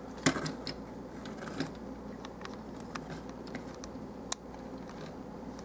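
Scattered light clicks and taps of the plastic parts of a Transformers Long Haul action figure being handled and posed, over a faint steady low hum.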